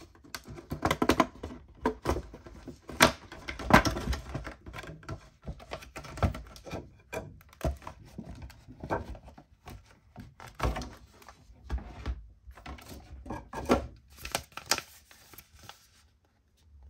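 Stiff clear plastic packaging box being handled and opened by hand, giving irregular clicks, taps and crackles as the safety goggles are taken out.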